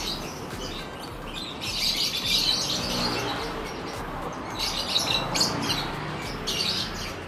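A crowd of caged lovebirds chattering, with shrill high chirps that swell in bursts.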